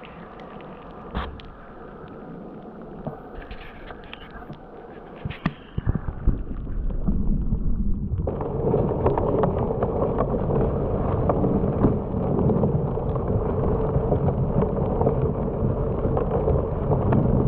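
Muffled churning water heard through a camera submerged in a tub of live yabbies, with scattered clicks and knocks at first; after about six seconds it turns into a louder, dense, steady rumble.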